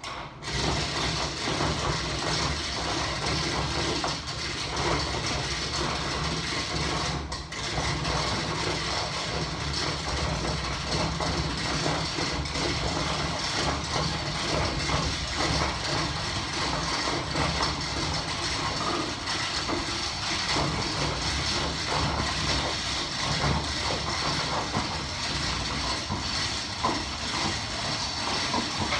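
Electric overhead hoist motor running steadily, starting abruptly, as it lowers a fibreglass boat hull on slings onto its cradle.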